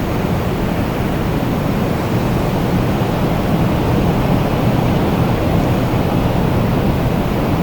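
Strong wind blowing steadily, a dense low rushing noise that swells slightly about halfway through.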